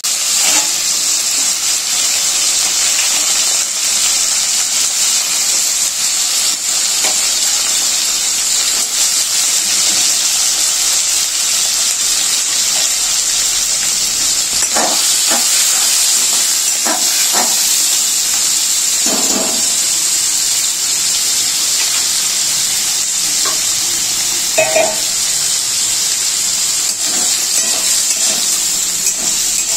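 Crab pieces frying in hot oil in a steel wok, a steady loud sizzle. A metal spatula stirs them, with a few short scrapes and clinks against the pan in the middle and one more near the end.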